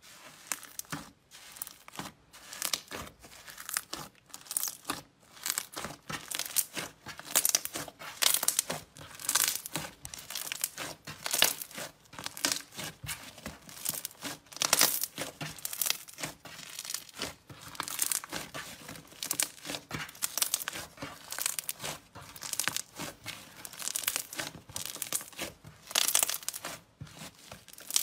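Hands kneading and pressing a grainy, foam-textured slime, giving a quick run of short crackles and pops, with louder bursts every second or so as it is squeezed and pulled.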